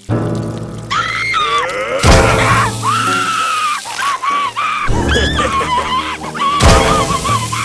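A cartoon skunk's high, wavering scream as her face is pressed onto a hot griddle, with a sizzling hiss, over background music. A sharp loud hit comes about two seconds in, and another near the end.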